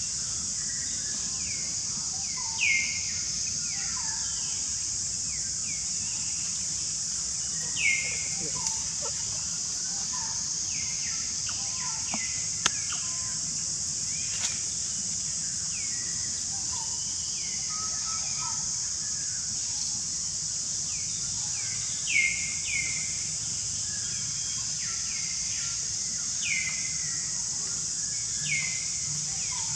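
Steady high-pitched insect drone, with short, sharply falling chirping calls repeated every few seconds over it.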